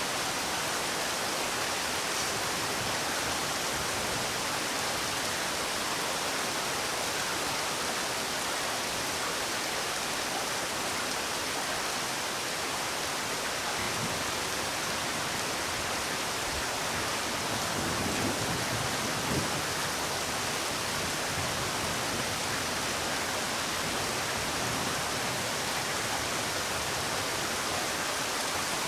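Steady rainfall: an even hiss of rain, with a few faint low thuds about two-thirds of the way through.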